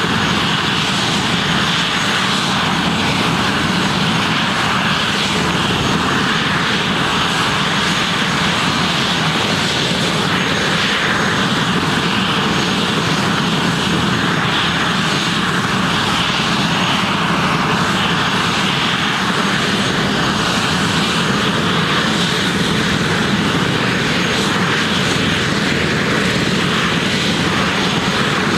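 Police helicopter running on the ground with its turbine engine and main rotor turning: a steady, unchanging rotor and engine noise with a thin high turbine whine over it.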